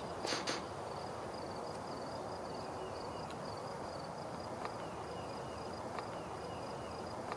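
Outdoor ambience in brushy weeds: a faint, high, pulsing insect trill runs on steadily, with a few short runs of falling bird chirps and a brief rustle near the start.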